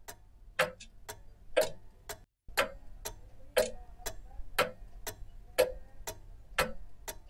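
Clock-like ticking in a steady tick-tock, two ticks a second with the louder tick once a second. The sound cuts out completely for a moment a little over two seconds in.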